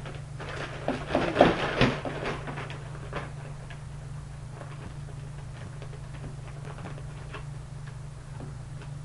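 Hockey gear and its packaging being handled during an unboxing: a burst of rustling and clattering in the first few seconds, then a few light taps, over a steady low hum.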